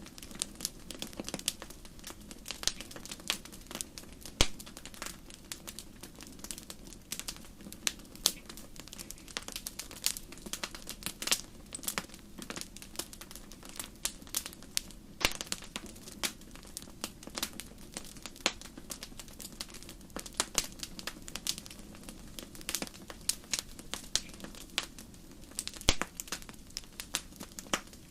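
Wood campfire crackling: many irregular sharp snaps and pops, several a second, over a low steady hiss and rumble of burning.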